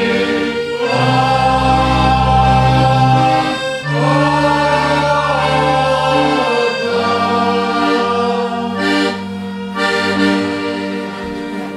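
Slow procession music of held chords over a deep bass, each chord lasting a second or two before the next, fading out near the end.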